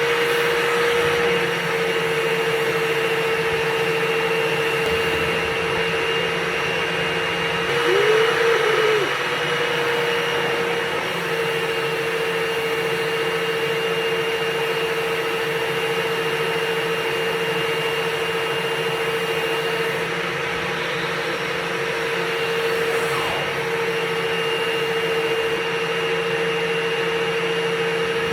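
Vacuum motor running steadily with a constant whine during dryer vent cleaning. About eight seconds in it briefly gets louder and its pitch wobbles.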